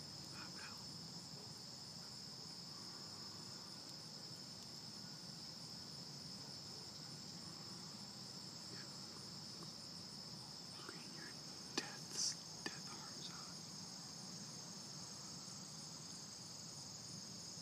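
Crickets trilling steadily in a continuous high-pitched drone, with a few short clicks about two-thirds of the way in.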